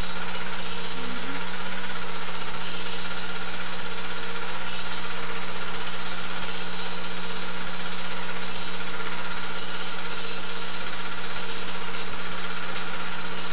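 Super 8 film projector running: a steady motor hum and whir with hiss.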